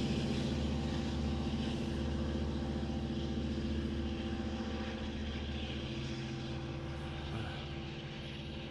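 EMD DE30AC diesel-electric locomotive's engine running steadily under load as it pushes a passenger train, its hum slowly fading as the train moves away.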